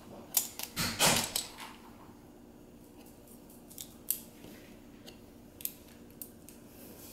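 Small plastic LEGO pieces clicking and tapping as they are handled and fitted on a tabletop, with a short burst of packaging rustle and clicks about a second in, then single sharp clicks every second or so.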